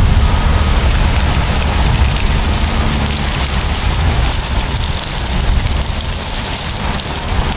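Caterpillar D7 and D8 bulldozers' diesel engines working hard, a deep steady rumble, under a dense crackling hiss of scrub being torn down by the dragged anchor chain.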